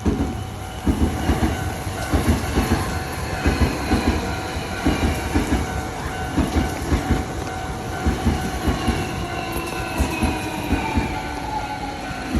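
Hankyu electric train passing over a level crossing, its wheels clattering over the rail joints in regular groups of thumps. The crossing bell keeps ringing, and a whine falls in pitch in the second half.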